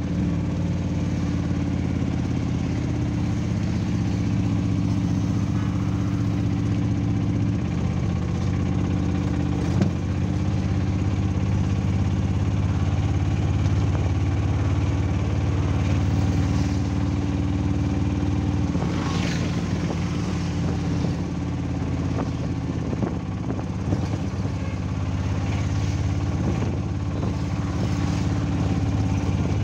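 Auto-rickshaw's small engine running steadily, with a single sharp knock about ten seconds in.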